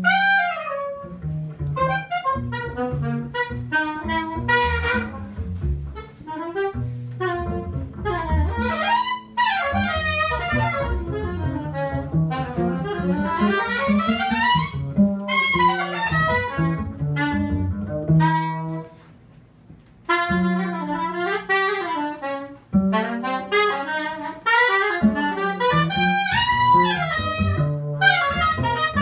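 Free-jazz trio playing live: a soprano saxophone plays fast, swooping and jumping lines over double bass and drums. The music briefly drops away about two-thirds through, then comes back in full.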